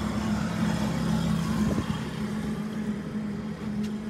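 An engine running steadily at idle: a constant low drone that holds one pitch, with a light knock about halfway through.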